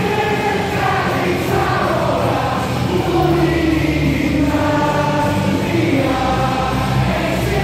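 Baseball crowd singing a cheer song together over amplified music, the voices holding long sustained notes; a heavy bass beat comes in about three seconds in.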